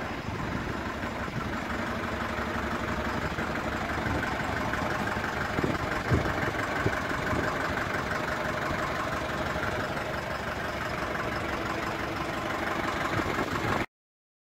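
DAF LF 45.160 refuse truck's four-cylinder diesel engine idling steadily. The sound cuts off suddenly near the end.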